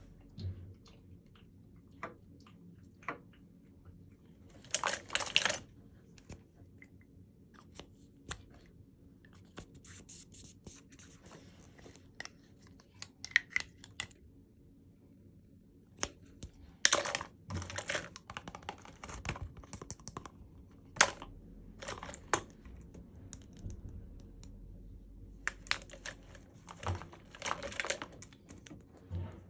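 Packaging being handled and opened: scattered taps and clicks, with several short bursts of rustling or tearing.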